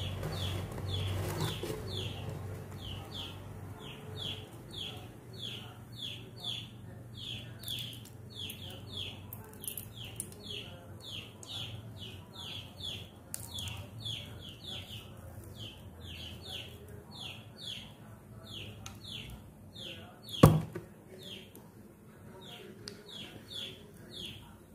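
A bird chirping over and over: short, high, falling notes about twice a second. A low hum sits under the first half, and a single sharp knock, the loudest sound, comes about twenty seconds in.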